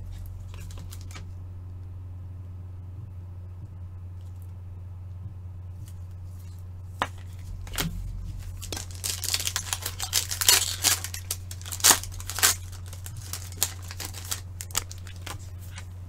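Plastic wrapper of a trading-card pack being torn open and crinkled: a dense run of tearing and crackling from about halfway through, after a few scattered clicks. A steady low hum runs underneath.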